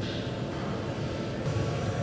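Steady hum and noise of factory machinery, changing in character about one and a half seconds in.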